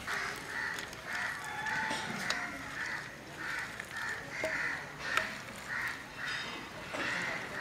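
A bird calling over and over, short calls about two a second. Under it is the soft rustle and occasional click of thick flattened rice being mixed by hand in a metal plate.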